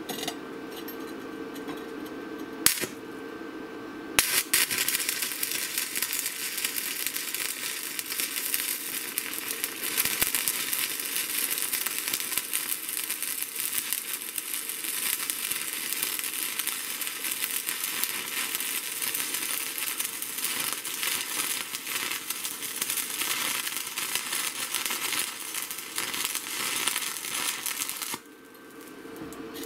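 Stick welding with a 6013 rod: a sharp click as the arc is struck a few seconds in, then the arc burning in a steady dense crackle for about 24 seconds before it breaks off near the end.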